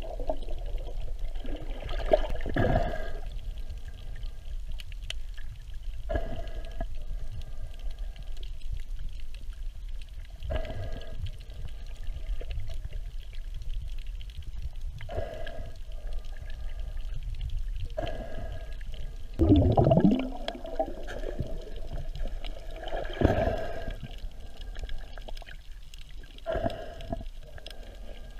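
Underwater recording: a steady low water rumble with a short gurgling burst of air bubbles every three to four seconds, from a diver's exhaled breath. The loudest burst comes about twenty seconds in.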